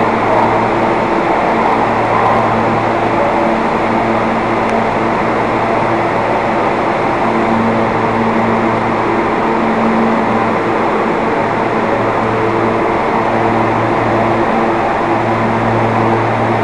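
R160B subway train running along a station platform: a steady loud rumble of wheels on rail, with a low hum that swells and fades several times.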